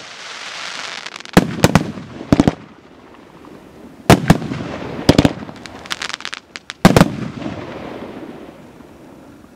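Joker Fireworks JF VIP5 'Generalsky' 232-shot fireworks battery firing its aerial shells in quick groups of sharp bangs, about a second in, around four, five and six seconds in, and a loud last group near seven seconds. Between the groups there is a hissing crackle from crackling stars, which fades away near the end.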